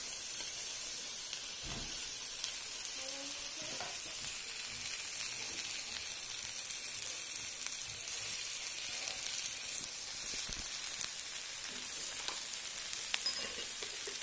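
Sliced okra sizzling steadily as it stir-fries in oil in a wok, with a few clicks and scrapes of the spatula against the pan.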